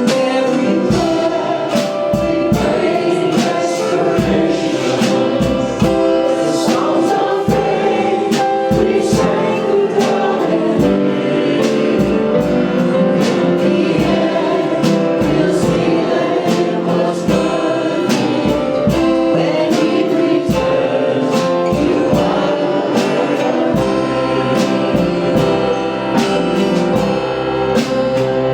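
Congregational worship singing with a band: many voices sing a gospel song over keyboard and drums keeping a steady beat.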